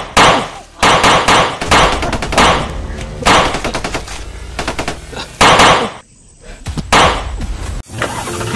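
A series of about eight loud gunshot-like bangs at uneven intervals, each with a short ringing tail.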